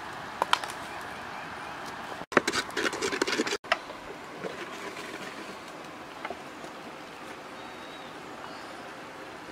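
Eggs frying in a black pot over a wood fire, with a steady sizzle. A wooden spatula scrapes and knocks against the pot in a quick cluster of clicks about two to three and a half seconds in.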